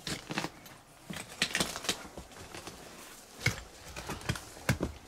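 Footsteps pushing through dense undergrowth: irregular crackling and snapping of twigs and brush, with a few louder snaps.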